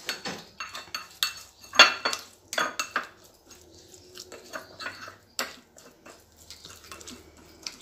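Metal spoon stirring oil and spices in a cut-glass bowl, clinking and scraping against the glass in quick, irregular strikes. The strikes are busiest in the first three seconds, with the loudest clink about two seconds in, then sparser, softer taps.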